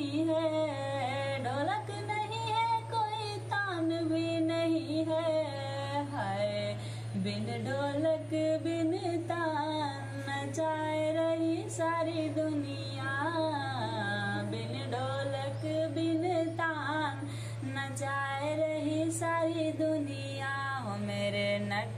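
Hindi devotional bhajan music: an ornamented sung melody with long held notes over a steady low drone.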